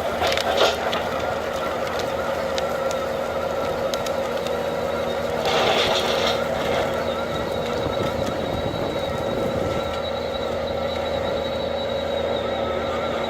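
Skid steer running a MeriCrusher MJS-160 hydraulic forestry mulcher, engine and rotor holding a steady pitch. A brief louder, rougher surge comes just after the start and another about six seconds in.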